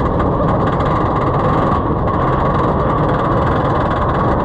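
Zadra roller coaster train climbing its lift hill, heard from the front car: a loud, steady mechanical rumble that holds without change.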